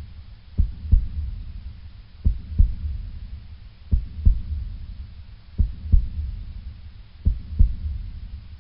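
Slow heartbeat sound effect: five double thumps, lub-dub, about one pair every 1.7 seconds over a low rumble, fading out near the end.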